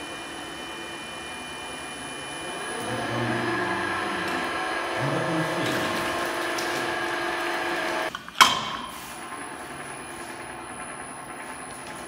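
Bottle-filling machine's inverter-driven electric drive speeding up as the frequency is raised from about 17 to 50 Hz: a rising whine over louder mechanical running. About eight seconds in, the running sound drops away and a single sharp, loud clack is heard.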